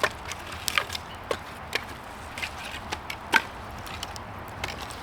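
Firewood being handled and broken for a wood stove: irregular sharp wooden clicks, snaps and knocks, the loudest a little over three seconds in, over a low steady rumble.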